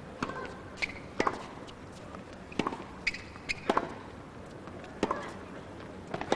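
Tennis rally on a hard court: a serve, then sharp racket strikes and ball bounces about once a second, with a few short squeaks among them.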